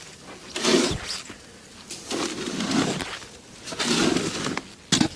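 A man breathing heavily and out of breath after shovelling snow: several loud breaths about a second apart, with a short sharp one near the end.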